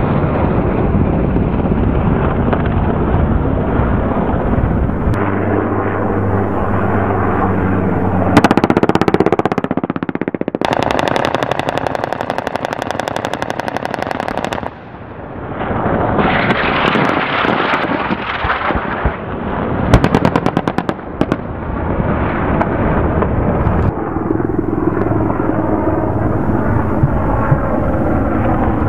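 Rapid automatic weapon fire and the blasts of rounds striking the target, over a continuous heavy rumble. About a third of the way in comes one long burst of very fast, even fire that stops abruptly, and a shorter cluster of sharp shots follows a few seconds later.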